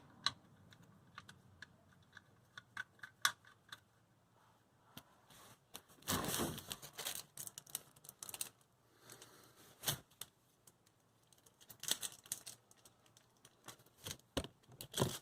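Irregular light metallic clicks and clinks as the oil drain plug is threaded back into the oil pan and worked with hand tools, with a short scraping rustle about six seconds in.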